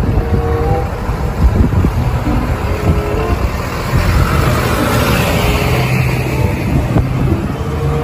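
A small tow truck's engine running as it drives slowly past, towing a car on a wheel dolly, with road traffic noise around it.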